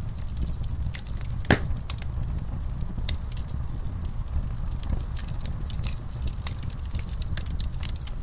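Wood fire in a fireplace crackling, with frequent sharp pops over a low, steady rumble of flames; the loudest pop comes about a second and a half in.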